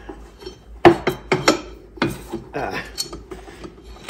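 Irregular metal clicks and knocks from a Polaris Sportsman's CVT primary clutch being worked by hand into the drive belt and onto its shaft. The loudest knock comes about a second in.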